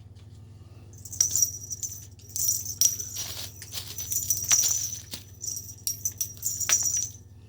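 Feather cat toy jingling and rattling in repeated high-pitched bursts as a cat plays with it, starting about a second in and stopping shortly before the end.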